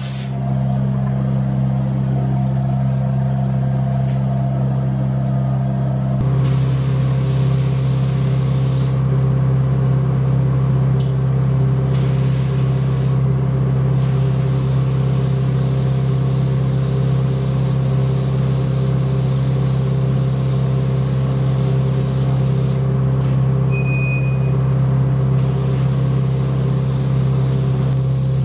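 Compressed-air gravity-feed spray gun hissing as it sprays, in long spells starting about six seconds in, with short breaks where the trigger is let off. A steady low machine hum runs underneath.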